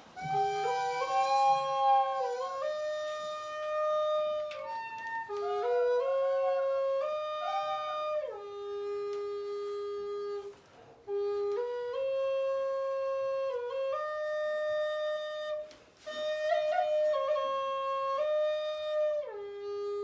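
A single Andean flute playing a slow melody of held notes, with slight wavering on some of them, breaking off briefly twice.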